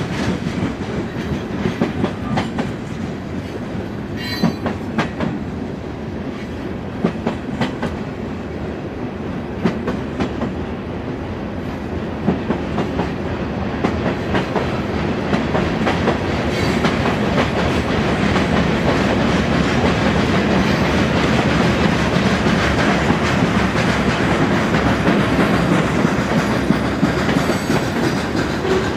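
Freight cars (gondolas, then covered hoppers) rolling past, their steel wheels clicking over the rail joints over a steady rumble. The sound grows louder about halfway through.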